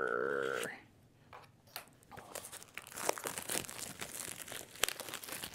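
Packaging of an Apple Magic Trackpad 2 crinkling and tearing as it is unpacked: an irregular run of crackles from about a second in, with one sharp click near the end.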